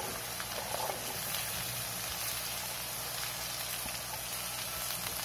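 Steady sizzle of shallots and tomato frying in hot oil in a pan as sliced ivy gourd is tipped in, with a few faint clicks of the pieces dropping in during the first second.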